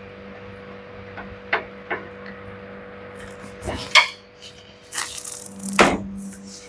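Scattered metallic clinks and knocks of tools and parts being handled, over a faint steady hum.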